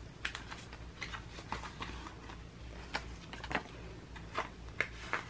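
Clear plastic binder sleeves crinkling and rustling as photocards and paper fillers are slid into their pockets, with a scatter of light clicks and taps.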